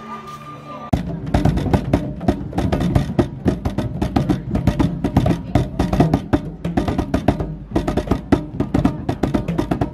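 Djembe-style hand drums slapped with bare hands, a fast, irregular run of strikes starting about a second in and continuing to the end.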